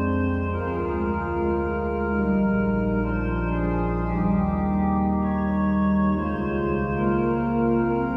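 Organ music: slow, sustained chords over held bass notes, the harmony changing every second or so.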